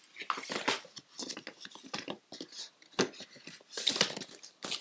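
Eyeshadow palettes being handled and shuffled: cardboard and plastic cases tapping, sliding and clacking against each other, with a sharp knock about three seconds in.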